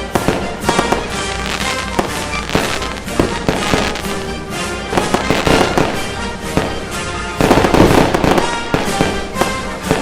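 Fireworks going off in a rapid run of bangs and crackles over background music, loudest about seven and a half seconds in.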